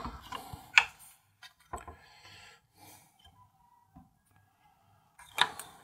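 Hands handling a ruler against a laser-cut wooden model-ship hull framework: scattered light clicks and knocks, with a short louder scrape near the end.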